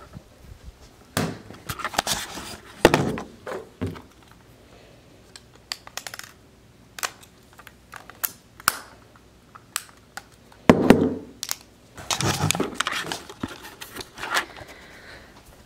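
Scattered clicks and taps of camera batteries and a charger or camera body being handled and snapped in and out on a wooden table, with a few louder bumps and rustles of handling in between.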